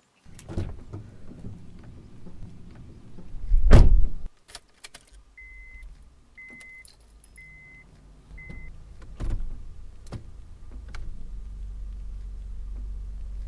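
A car door opens and is pulled shut with a heavy thud about four seconds in. The dashboard warning chime then beeps four times, evenly spaced, and near the end the engine starts and runs with a steady low drone.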